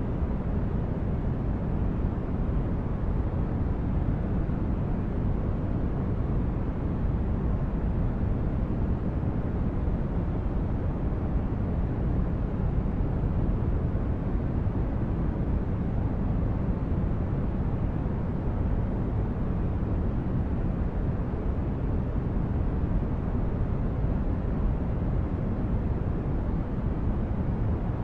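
Steady, unchanging noise for sleep, deep and heavy in the low end and fading toward the highs, closer to a low rumble than a bright hiss.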